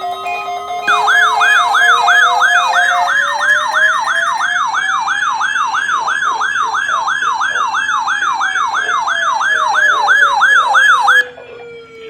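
Electronic siren: a fast yelp sweeping up and down nearly three times a second over a slow wail that rises for about six seconds and then falls. The yelp cuts off suddenly near the end, leaving the falling wail.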